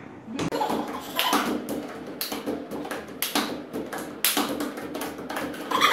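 Hands tapping and slapping on a wooden table, a quick, uneven series of sharp taps.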